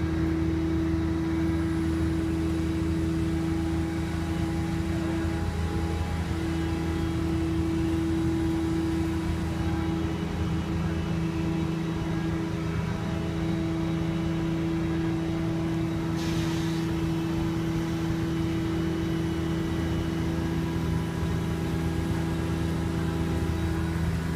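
Heavy diesel machinery running steadily: a continuous low engine drone with a steady hum over it, and a brief hiss about two-thirds of the way through.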